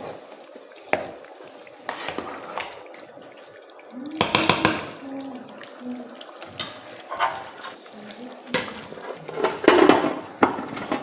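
Pots, pans and metal cooking utensils clinking and clattering during cooking, with scattered sharp knocks and a louder clatter about four seconds in and again near the end.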